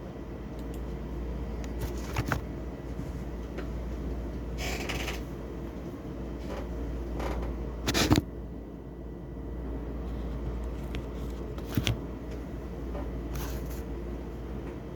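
Steady low background hum with a few scattered clicks, knocks and a brief rustle; the sharpest knock comes about eight seconds in.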